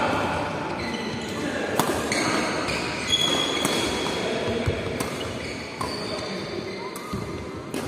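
Badminton rally in a reverberant hall: sharp racket-on-shuttlecock hits a second or so apart, mixed with short squeaks of court shoes on the mat.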